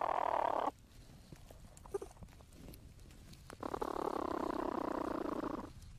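Young platypuses in their nesting chamber, picked up by a microphone inside the burrow: a dense, scratchy noise in two stretches. The first breaks off under a second in; the second lasts about two seconds just past the middle, with a few faint clicks between.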